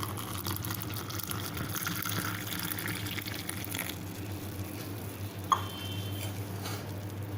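Hot boiled milk being poured into a cup over whipped instant coffee, a steady stream of liquid, with one short click about five and a half seconds in.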